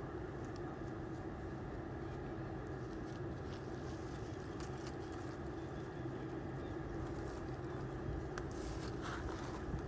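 A steady low mechanical hum holding a constant pitch, like a motor running at a distance. Faint scattered ticks run over it, with a few louder crackles near the end.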